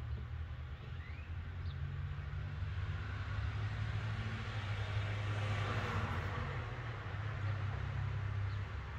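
A vehicle passing by, its rushing noise swelling to a peak about six seconds in and then fading, over a steady low hum.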